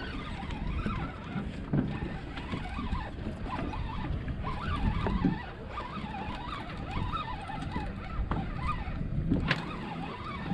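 A low, uneven rumble and rush on a fishing boat at sea, with faint wavering tones over it and a sharp tap near the end.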